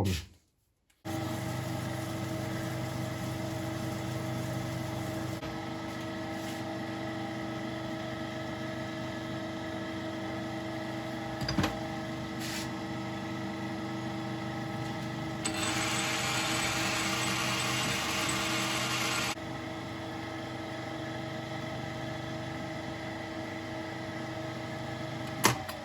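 Metal lathe running steadily while turning a steel pin, a steady motor hum, with a hissing cutting sound for about four seconds past the middle and two sharp clicks.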